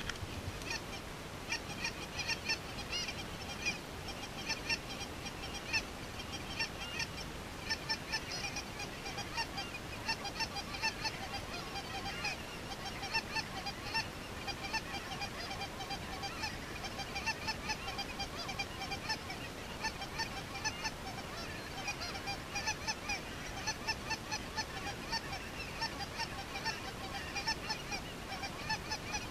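A large flock of geese calling: a continuous chorus of many short, overlapping honks.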